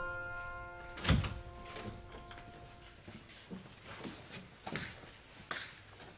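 A door opens with a sharp clunk about a second in, then faint irregular steps and shuffles as someone walks into the room. The last notes of a piano chord fade away over the first few seconds.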